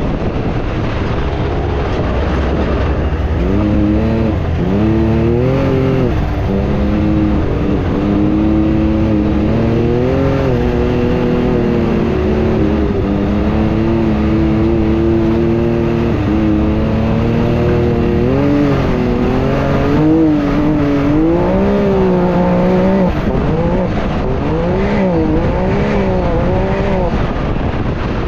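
Can-Am Maverick X3 side-by-side's turbocharged three-cylinder engine at racing pace, heard from inside the cab, its pitch gliding up and down again and again as the driver works the throttle.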